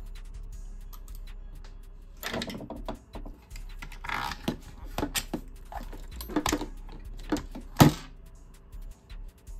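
Plastic and metal parts of an airsoft M4 rifle clicking, scraping and knocking as it is handled and taken apart, with one sharp, loud knock near the end.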